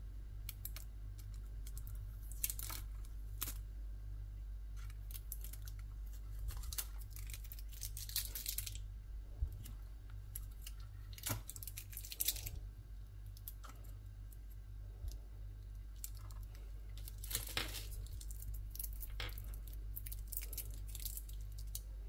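Packaging being handled while unboxing a drone: paper and plastic tearing and crinkling in irregular bursts, with small sharp clicks and knocks, over a steady low hum.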